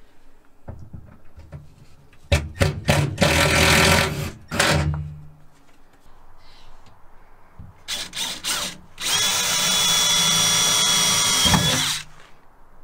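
Cordless drill working up into the steel of the van's underside and sidestep bracket for self-tapping screws: a few short trigger blips and a run of about a second, then more blips and a steady run of about three seconds with a thin high whine, ending sharply.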